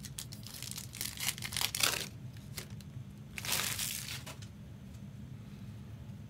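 Crinkling of a trading-card pack's foil wrapper as it is handled and torn open, in two spells: one about two seconds long at the start and a shorter one just past the middle.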